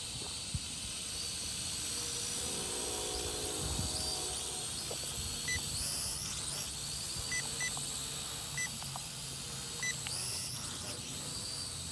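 Wind rushing over the microphone while a brushed-motor mini quadcopter flies; its motors whine faintly, rising in pitch now and then as it flips. Five short high electronic beeps sound in the second half.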